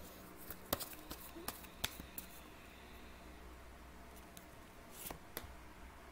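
Oracle cards handled on a wooden table: a few light clicks and taps, several in the first two seconds and two more about five seconds in, as a card is moved and turned. Under them a faint steady low hum, noise from a faulty microphone.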